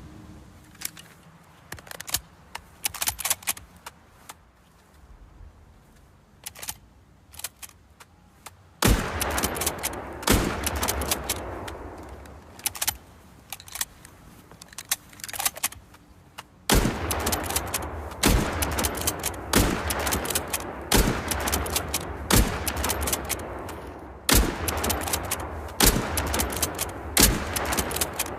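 Lee-Enfield bolt-action .303 rifle sound effect: a few sharp clicks, then one loud shot with a long echoing tail. After that comes a run of shots about every second and a half, each ringing into the next.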